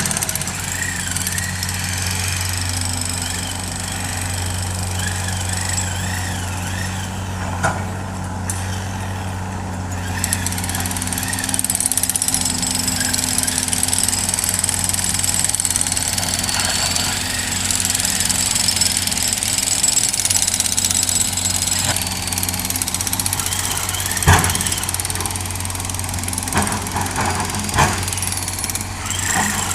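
Hitachi hydraulic excavator's diesel engine running steadily with a deep hum, with a few sharp metallic knocks from the machine at work, the loudest in the last third.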